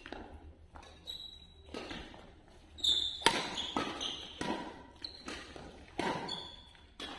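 Badminton rally: rackets striking the shuttlecock about once a second, each hit sharp and echoing in the hall, the loudest about three seconds in. Short high squeaks of players' shoes on the court floor come between the hits.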